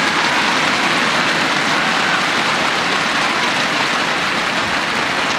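Large arena crowd applauding steadily, a dense even clatter of many hands.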